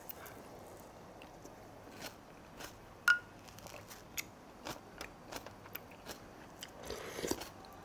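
Close-up eating sounds: chewing and crunching of fried Korean pancakes (jeon), with scattered small clicks. There is one sharp clink about three seconds in.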